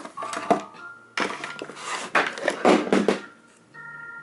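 Plastic drive-enclosure case being handled close to the microphone: rubbing, scraping and knocks, a short patch at the start and a longer, louder one in the middle.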